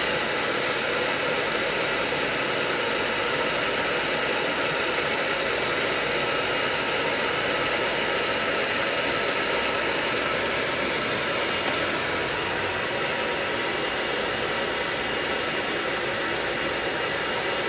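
Hair dryer blowing steadily on a dog's coat: an even rush of air with a faint whine from its motor.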